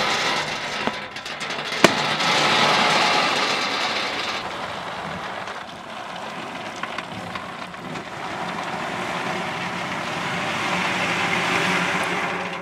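Shelled peanut seeds poured by hand from a tin into a seed drill's sheet-metal hopper: a steady rattling rush of seeds on metal, heaviest in the first few seconds, with a low steady hum underneath.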